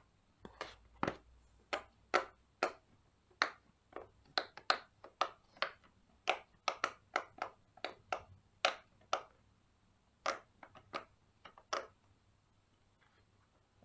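Silicone bubbles of a Mega Pop It fidget toy being pressed in one after another, a run of short sharp pops, irregularly spaced at about two or three a second, stopping near the end.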